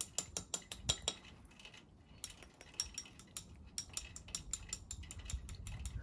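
Irregular sharp metallic clicks and clinks, in runs of up to about four a second, from metal parts of the ATC's front end and tools being worked against each other while freeing a rusted-together joint.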